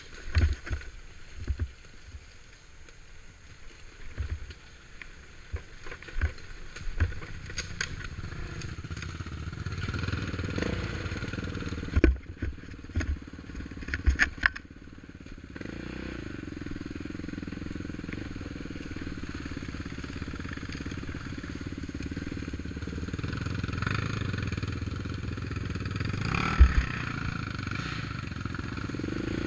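ATV engine running. Scattered knocks and thumps come through the first half, and the engine grows louder and steadier from about halfway on.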